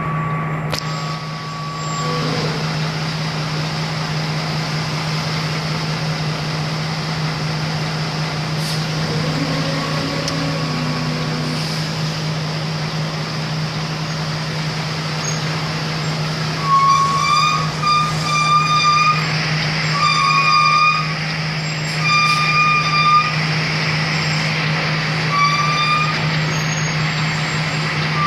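Heavy truck's engine running with a steady low drone, heard from inside the cab. In the second half, a run of short, irregularly spaced high beeps sounds over it.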